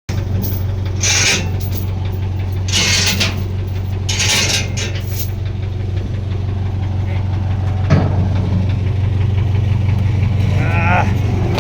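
An engine idling steadily with a low, even hum, broken by three short hissing bursts in the first five seconds and a single sharp knock about eight seconds in.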